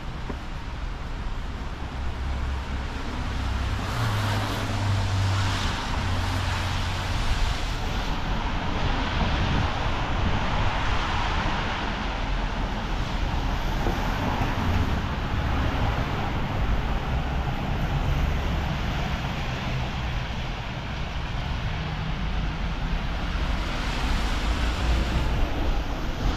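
Road traffic: cars passing on a street, a steady rush of tyre and engine noise that swells and fades.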